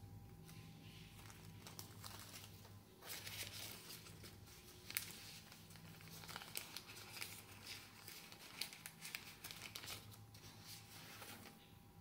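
Thin plastic parts bag crinkling as it is handled and pulled open, with a sharp click about five seconds in.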